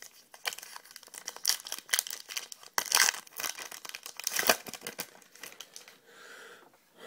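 Crinkling and tearing of a trading card pack's wrapper as it is torn open and handled, a dense crackle with louder rips about three and four and a half seconds in.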